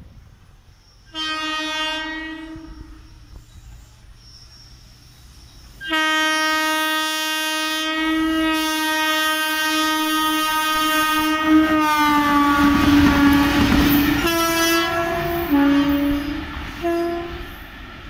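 Twin Indian Railways electric locomotives, a WAP-1 and a WAP-4 running light, sounding their horns as they pass: a short blast, then a long blast that drops in pitch as the locos go by. The rumble and clatter of the wheels over the rails follows, then a few more horn blasts at two different pitches near the end.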